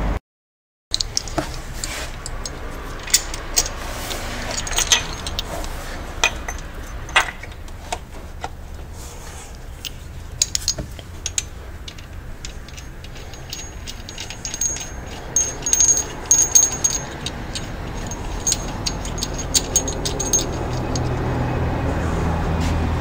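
Irregular metallic clinks and clicks of a bolt and hand tools being worked by hand in the engine bay while a drive belt idler pulley is refitted. A low rumble builds toward the end.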